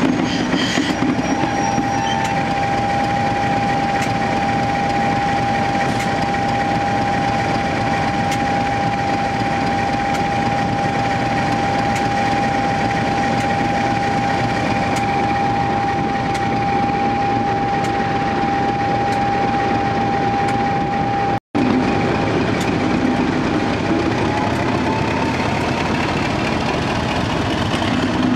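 Class 50 diesel locomotive's English Electric V16 engine running loud and steady, with a steady high whine over the engine note. After a momentary dropout about two-thirds of the way through, the whine rises in pitch as the engine picks up.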